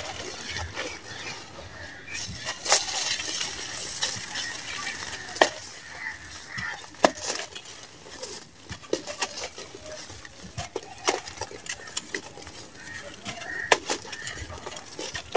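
Hands crumbling dry sand-cement lumps: gritty crunching and crackling as the lumps break, with loose sand and powder hissing as it pours through the fingers. Sharp crunches come at irregular moments, the loudest a few seconds in and near the end.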